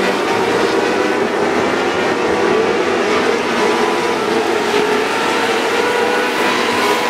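A pack of winged micro sprint car engines running hard together, several high-revving engine notes layered into one steady, continuous drone.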